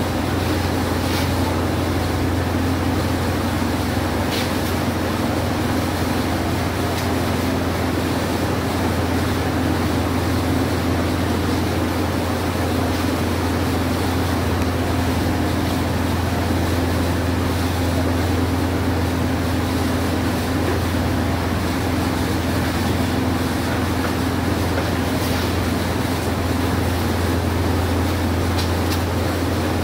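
Steady low mechanical hum of a motor running continuously at an unchanging pitch and level, with a few faint clicks.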